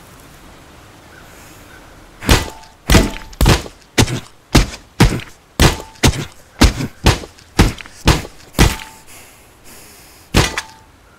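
Heavy blows from a dumbbell, a hard thud about twice a second, thirteen in a row, some with a brief metallic ring. One last blow follows near the end.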